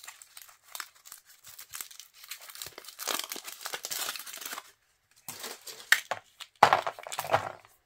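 Foil wrapper of a Yowie chocolate egg crinkling and tearing as it is peeled off by hand, then the hollow chocolate shell cracked apart in a few sharp snaps near the end.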